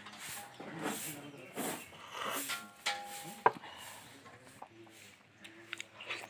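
Rustling and handling noise of a phone moved about over a plate of food, with a sharp click about three and a half seconds in and faint voices in the background.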